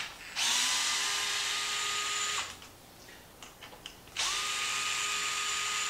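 DeWalt 8V gyroscopic cordless screwdriver running in two steady runs of about two seconds each, backing out small 2.5 mm screws from a plastic RC-truck chassis brace. Each run is a whine, with a few small clicks in the pause between as the bit is moved to the next screw.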